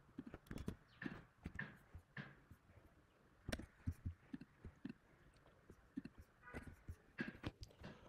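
Faint, irregular clicking of computer keyboard keys being typed, with a few mouse clicks.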